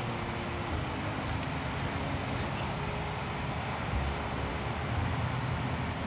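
Steady low outdoor rumble with a faint hiss, holding at an even level throughout.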